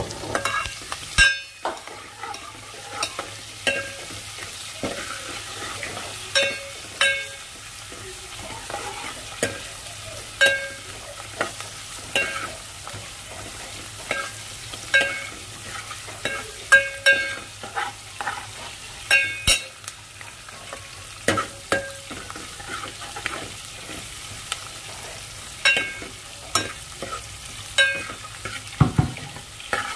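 Sliced onions, green chillies, curry leaves and dried red chillies frying in hot oil with a steady sizzle, as a tempering for dal. A steel ladle stirs them, its clinking against the metal pan ringing out every second or two.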